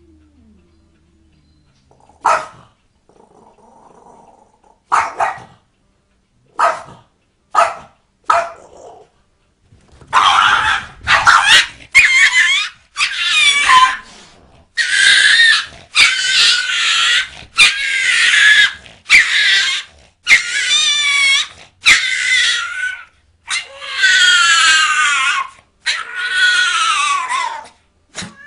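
Dog making meow-like cries. A few short, separate calls come first, then from about ten seconds in about a dozen long, loud calls follow close together, each about a second long, some wavering in pitch.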